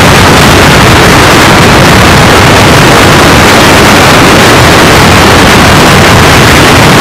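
Loud, unbroken wind rush on the uncovered microphone of a helmet-mounted phone on a motorcycle at speed. It is steady and so loud that it overloads the recording and buries any engine or road sound.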